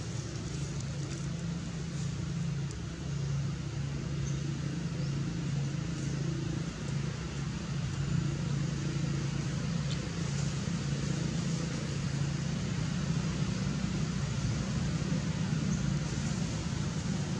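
Steady low hum of a running engine under outdoor background noise.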